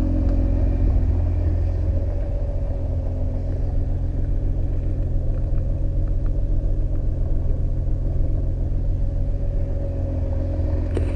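A car engine idling steadily: a continuous low rumble with a steady hum over it.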